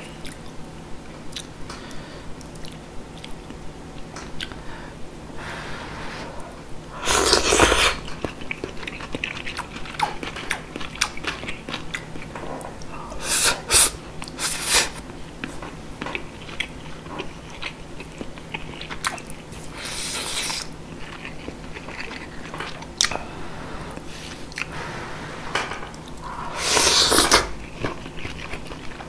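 Close-miked eating of yukgaejang, spicy beef soup: wet chewing clicks all through, broken by several loud slurps of soup and noodles, the longest about seven seconds in and near the end.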